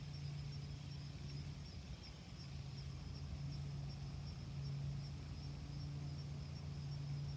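Quiet outdoor ambience: a steady low hum under a faint high, evenly pulsing chirr like insects.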